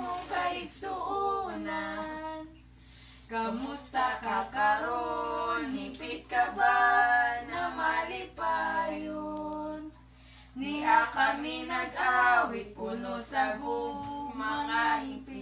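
A small group of female voices singing a birthday serenade together in phrases with held notes, pausing briefly twice between lines.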